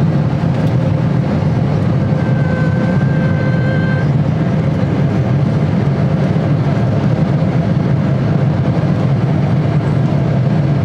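Steady low roar of an airliner's cabin, engine and air noise, with a faint thin whine for a couple of seconds near the start.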